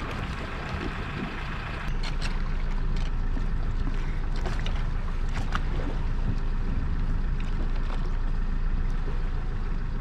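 Boat engine running steadily underway, with water and wind noise. It gets louder about two seconds in, and a few light knocks sound over it.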